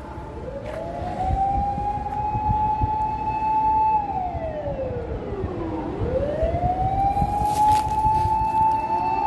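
Emergency vehicle siren wailing: a slow rise, a held high tone for about two seconds, a slow fall, then rising and holding again, over low traffic rumble.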